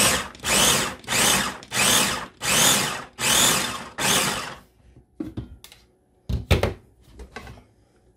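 Ninja food chopper's motor pulsed about seven times in short, evenly spaced bursts, chopping onion, garlic, hot peppers and cilantro in the bowl. Then come several plastic knocks and clacks as the motor head and lid are lifted off, one of them loud.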